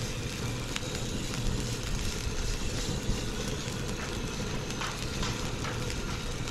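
Strong wind buffeting the microphone, a steady low rumble, with faint scattered crackles over it, likely from the grill fire.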